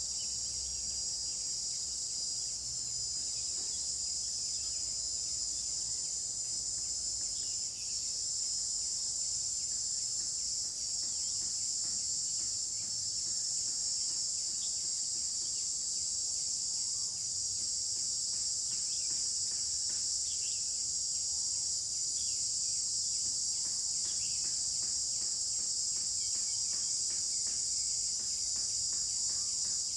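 A steady, high-pitched chorus of insects, with faint short bird chirps scattered through it. A rapid pulsing call joins about halfway through.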